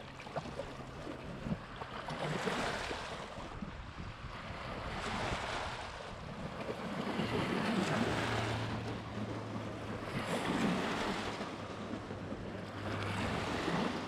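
Small lake waves washing up and breaking over a pebble shore, the rush of water swelling and falling away about every two to three seconds.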